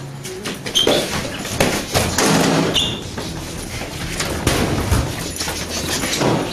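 Close-quarters sparring scuffle: a dense run of knocks, thuds and shuffling from bodies and strikes colliding, with two short high squeals about one and three seconds in.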